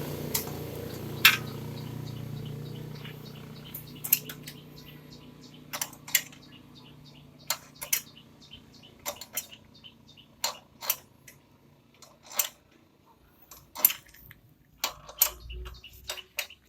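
Wrench clicking and clinking on metal, short sharp clicks at an irregular pace, as a motorcycle chain adjuster bolt is turned with a 10 mm spanner. A low hum fades out over the first few seconds.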